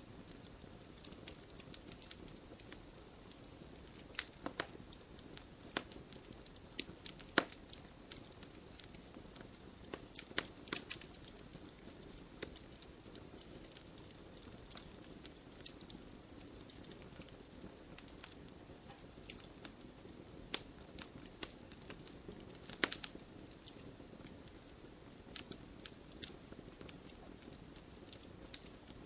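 Wood fire in a fireplace crackling steadily over a soft hiss, with irregular sharp pops and snaps, a few louder ones scattered through.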